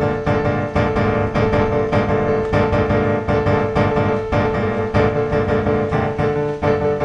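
Background piano music, a steady stream of struck notes over sustained chords.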